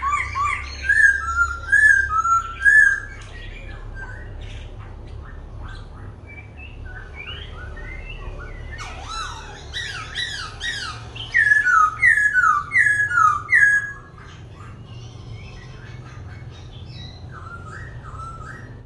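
Caged laughingthrush (khướu) singing and switching its song continuously: loud runs of repeated whistled notes in the first three seconds and again from about eleven to fourteen seconds, with softer, varied phrases between and after.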